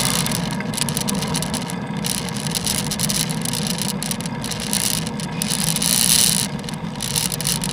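Road and traffic noise picked up by a camera on a bicycle riding in the rain: a steady low hum with a constant rattle and hiss, and a louder hiss swelling about six seconds in.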